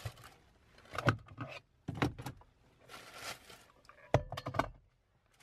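A phone that has just fallen being picked up and handled close to its own microphone: a string of knocks and bumps, with short bursts of rustling, likely the tissue paper around it.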